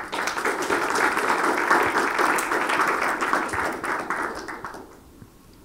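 Audience applauding, starting all at once and dying away about five seconds in.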